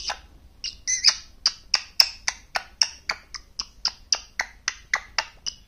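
A pet green parakeet giving a quick, even run of short, sharp chirps, about four a second.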